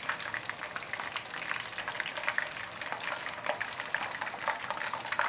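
Flour-coated chicken pieces deep-frying in hot oil at about 350 °F, sizzling with a dense run of fine crackles and pops. This is the first fry of a double fry.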